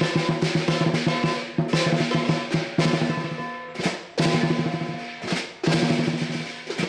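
Southern lion dance band: a large lion drum beaten in fast rolls with clashing cymbals, in phrases broken by brief pauses, stopping abruptly near the end.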